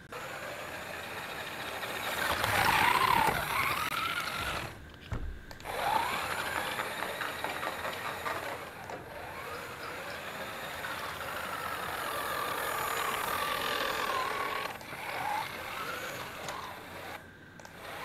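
Small electric drive motors of a cardboard remote-control rickshaw whining as it drives across a tiled floor, the pitch rising and falling as it speeds up and slows down, loudest about three seconds in, with brief breaks near five, nine and seventeen seconds.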